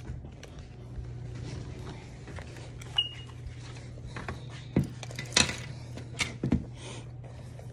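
Scattered clicks and knocks of small items being handled at a shop counter, with one short high beep about three seconds in, over a steady low hum.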